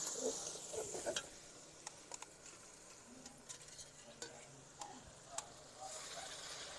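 Metal ladle stirring tomato masala frying in a karahi, with a light sizzle and scattered clicks of the ladle against the pan. The sizzle is strongest in the first half second, drops back, and rises again near the end.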